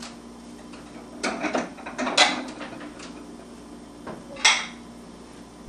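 Light knocks and clatters on a plastic high-chair tray as a toddler handles a birthday candle and the cake board: a cluster of taps between about one and two and a half seconds in, then one sharper knock near four and a half seconds.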